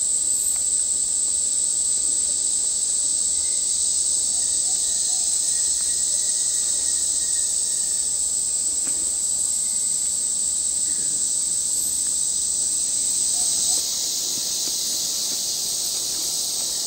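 Rainforest insects droning: a steady high-pitched chorus that shifts slightly and gets a little quieter about 14 seconds in.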